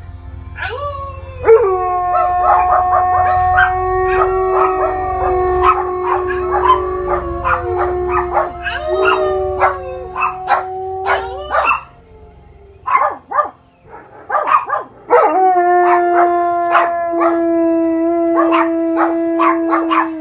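German Shepherd howling: long held howls broken by short yips and falling calls. The howling stops about twelve seconds in, with a few short calls, and starts again a few seconds later. Under the first part there is a low rumble from a film soundtrack.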